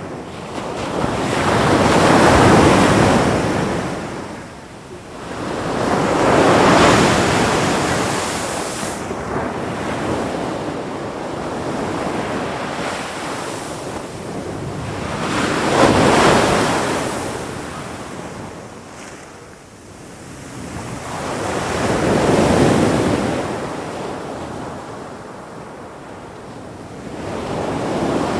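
Ocean waves surging and washing in, the rush swelling and fading in four slow surges with another building near the end.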